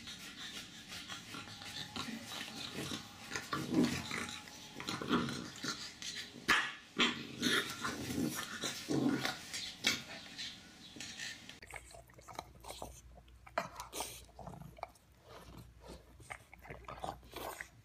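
Fluffy chow chow puppies growling and yapping in short bursts as they play-fight. After about twelve seconds this gives way to quieter, scattered clicks.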